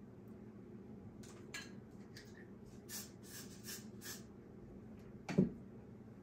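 Aerosol hairspray can sprayed in a quick run of short hissing bursts. A single thump about five seconds in.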